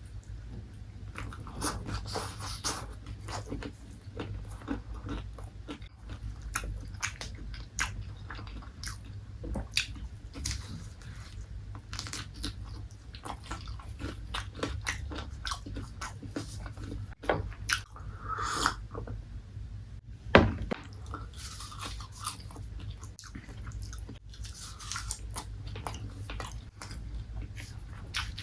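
Close-miked chewing and biting of crispy fried chicken, with many irregular crunches of the breading. About twenty seconds in, a single sharp knock stands out as the loudest sound.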